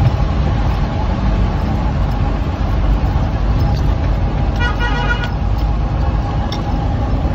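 Vehicle driving over a rough dirt road, heard from inside the cab: steady engine and road rumble, with a horn sounding once, briefly, about two-thirds of the way through.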